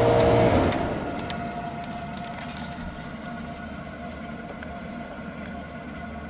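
Small window air conditioner being switched off about half a second in: its running hum and fan noise stop and fade away over about a second, leaving a fainter steady hum.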